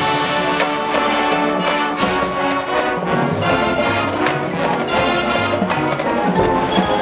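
High school marching band playing, brass holding sustained chords over steady percussion hits.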